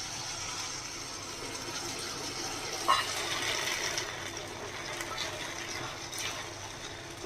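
Cornflour slurry poured into a hot pan of frying onion and capsicum: a steady sizzle, with a single light clink about three seconds in.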